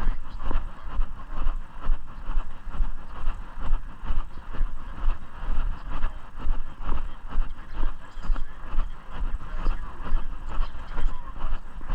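Footsteps of a person walking at a steady pace, about one and a half steps a second, with a steady low rumble on the microphone.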